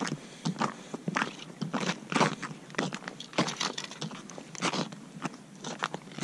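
Boots crunching on snow-crusted lake ice, about two to three crunches a second.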